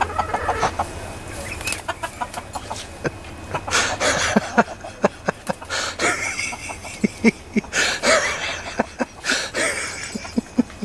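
Silkie chicken clucking, repeating short notes in quick runs, with a few longer, noisier bursts about four, six and eight seconds in.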